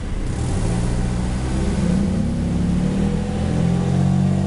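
Cars pulling away from a stop and accelerating, their engine notes rising in pitch from about half a second in, over a steady traffic rumble.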